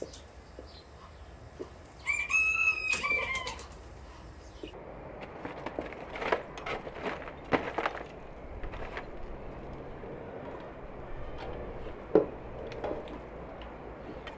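One crow from a fowl, a pitched, stepped call of about a second and a half starting about two seconds in. After that come scattered knocks and clinks as a man works at the metal lid of an outdoor brick oven.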